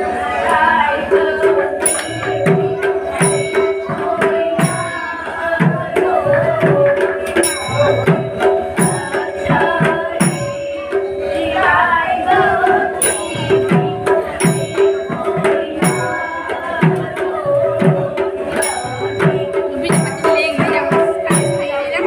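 Live devotional arti music: a barrel drum beaten with deep strokes that drop in pitch, regular ringing metal strikes from cymbals or a bell in runs with short pauses, and steady held notes from a melody instrument underneath.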